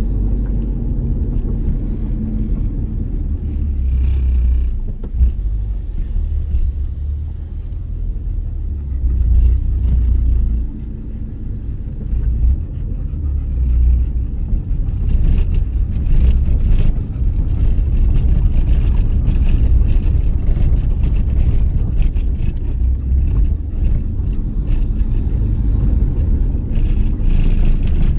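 Road and engine rumble inside the cabin of a moving car, a deep drone that swells and eases with the driving. Light ticks and rattles come in from about halfway through.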